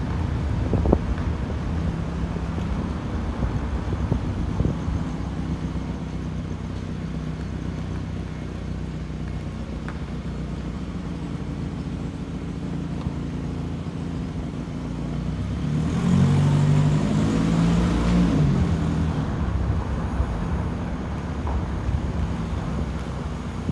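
Steady engine and road noise from a vehicle driving slowly down an empty street. About two-thirds of the way through, an engine grows louder for a few seconds, its pitch rising and falling, then settles back to the steady rumble.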